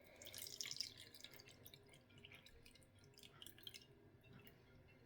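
Faint drips and small splashes of water as part of a cup of water is poured or spooned off from a measuring cup, busiest in the first second.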